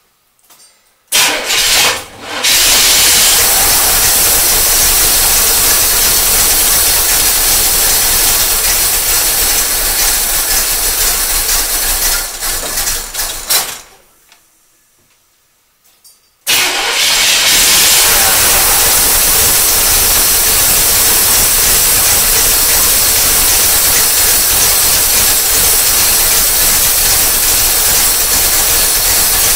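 New crate small-block Chevy V8 in a 1976 Corvette firing up about a second in and running steadily, then dying out about halfway through; a couple of seconds later it is started again and runs on. The builder blames the stalling and rough running on its new Holley carburetor, whose stuck needle and seat was dumping fuel into the engine.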